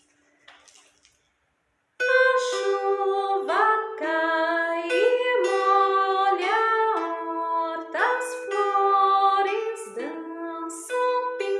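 A woman sings a pentatonic melody over a plucked kantele. It starts suddenly about two seconds in, after a near-silent pause.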